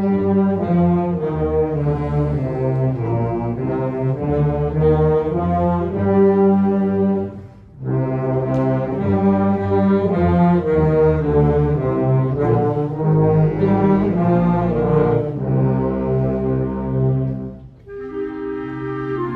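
Concert band playing a Christmas carol medley. There are two short breaks between phrases, about seven and eighteen seconds in, and the band plays more quietly after the second.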